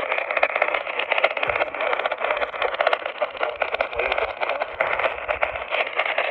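Radio static: a steady hiss thick with crackle, thin and cut off at the top like a received broadcast, with no voice coming through.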